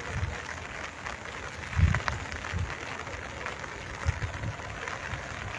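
Gentle rain falling, a steady hiss, with a few short low thumps, the loudest about two seconds in.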